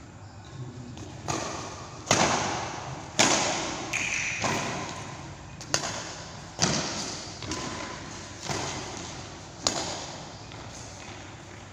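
Badminton rackets striking a shuttlecock back and forth in a rally: about nine sharp smacks, roughly one a second, each ringing out in the echo of a large hall. A brief squeak sounds near the middle.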